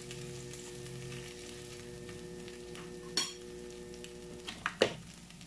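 Marinated beef slices sizzling on a hot ridged electric grill plate, a steady hiss. A single ringing clink comes about three seconds in, and a few sharp knocks near the end, the loudest just before it ends.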